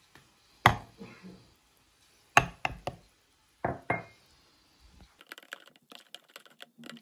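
A few sharp knocks, the loudest about two-thirds of a second in and again near two and a half seconds, then from about five seconds a run of quick light clicks: a spoon stirring liquid in a plastic measuring jug.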